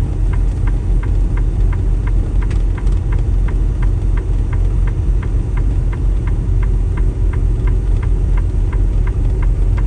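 Chained-up semi truck creeping along a snowy road: a steady low rumble of engine and road with the tire chains clicking in an even rhythm, about four clicks a second.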